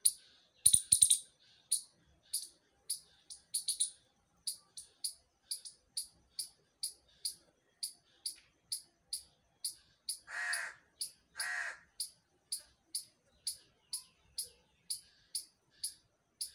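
A squirrel giving short, sharp, high chirps in a steady run of about two to three a second, the typical repeated alarm call. Two longer, lower crow caws break in about ten and eleven seconds in.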